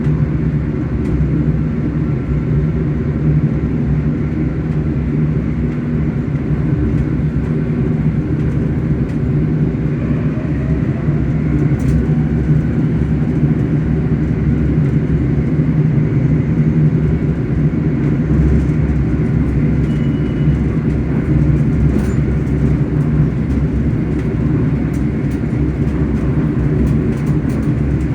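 ScotRail electric train's traction motors humming steadily as the train runs, a constant low drone with a faint whine rising in pitch about ten seconds in.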